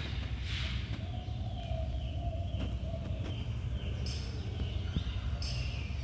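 Background ambience: a steady low rumble, with faint high bird chirps now and then in the second half.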